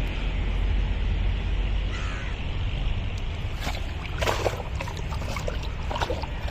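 Water sloshing and splashing in irregular bursts over a steady low rumble, the splashes starting about halfway through.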